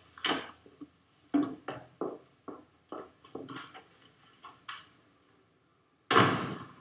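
Irregular short knocks and clinks of a person handling objects and moving away across a small hard-floored room, then one louder thud with a short rush of noise about six seconds in.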